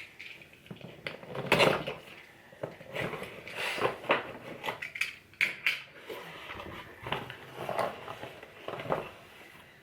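Cardboard subscription box being opened and its packaging handled: a run of irregular rustles, scrapes and light knocks, the loudest about one and a half seconds in.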